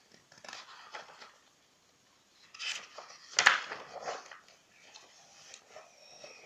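Paper rustling with a few sharp crackles as pages of a hardcover colouring book are turned, loudest about three and a half seconds in.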